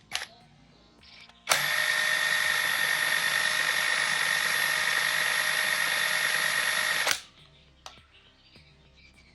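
Dagmara DTD173 cordless impact driver running at a steady speed for about five and a half seconds, starting abruptly about a second and a half in and cutting off sharply near the end. A short click comes just before it.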